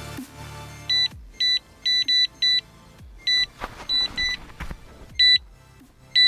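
Electronic fishing bite alarm sounding a string of short single beeps at irregular spacing, about ten in six seconds: line being pulled by a fish taking the bait, a stuttering, rattly bite.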